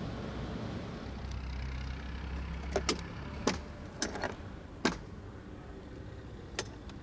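Key being inserted and turned in a Qooder 400 scooter's ignition lock: a run of sharp clicks from about three seconds in, and one more near the end, over a steady low hum that fades.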